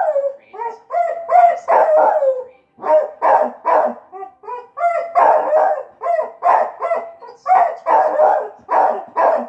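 A dog barking over and over, two or three short pitched barks a second with a couple of brief pauses: demand barking at a ball stuck under the couch that it cannot reach.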